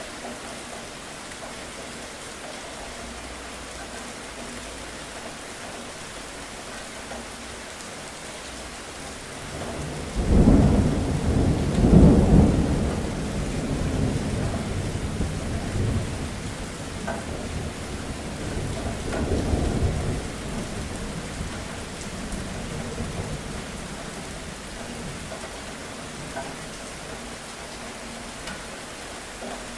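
Steady rain throughout, with thunder that breaks suddenly about a third of the way in and rumbles on for several seconds. It swells once more before fading back into the rain.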